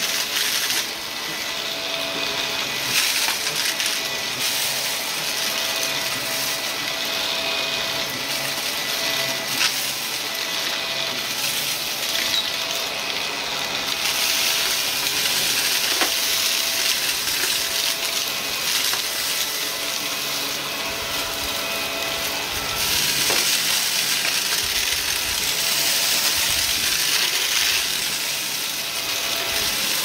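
Shark upright vacuum cleaner running steadily over carpet while the crunchy debris it picks up crackles and rattles up through the brushroll and hose.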